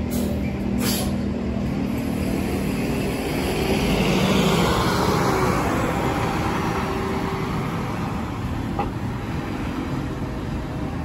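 City transit bus pulling away from the curb: its engine hums low, then swells as the bus accelerates through the turn around four seconds in, and fades as it drives off, over street traffic. Two brief hisses sound at the very start.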